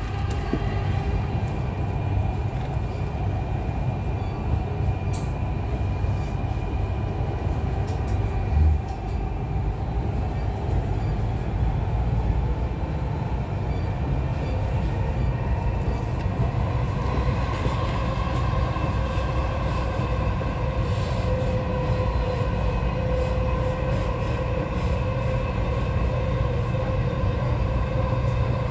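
Dubai Metro train running on the elevated track, heard from inside the car: a steady low running rumble with a tonal motor whine that grows stronger and rises slightly from about halfway through. A single low thump comes about a third of the way in.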